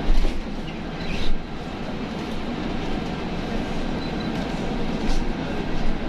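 Steady low rumble and road noise inside a moving city bus.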